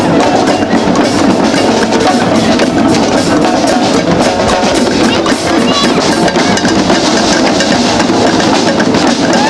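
A group of drums, bass drum among them, beating a dense, steady rhythm, with crowd voices mixed in.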